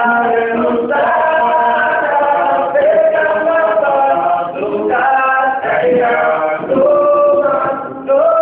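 A group of voices singing together, a choir-like sound, in long held notes that step from pitch to pitch, with short breaks between phrases.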